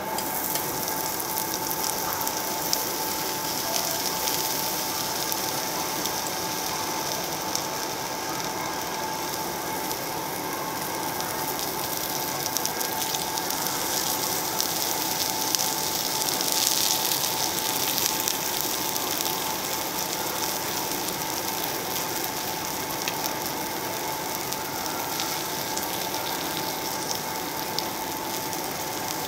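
Raw pork belly sizzling on a hot slotted steel grill plate: a dense, steady crackle and hiss that starts suddenly as the first slice goes down and grows louder for a couple of seconds a little past the middle.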